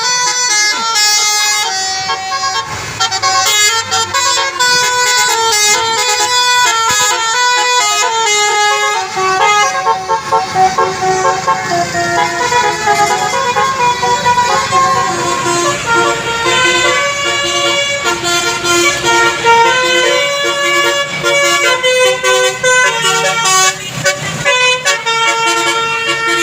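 A basuri musical bus horn playing a long tune of quick stepped notes. A bus engine runs under it from about nine seconds in.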